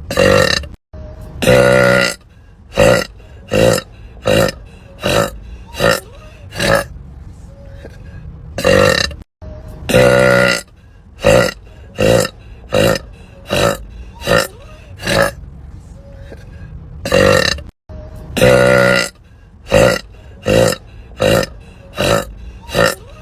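A woman burping over and over: a run of short burps, at times nearly one a second, with a longer drawn-out burp every so often. The same sequence repeats about every eight and a half seconds.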